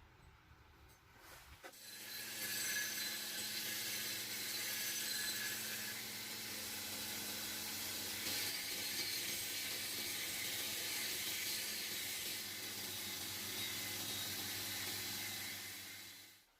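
An electric power tool starts a little under two seconds in and runs steadily, a loud hissing noise over a low motor hum, then stops shortly before the end.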